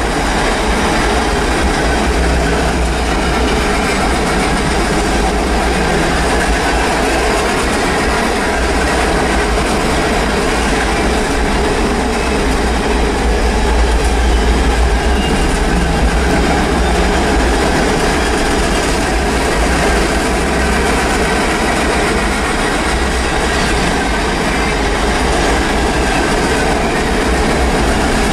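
Freight train cars rolling past close by: a loud, steady rumble of steel wheels on the rails that holds even throughout.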